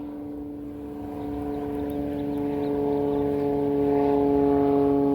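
An aeroplane flying over: a steady droning hum of several held pitches that grows louder from about a second in.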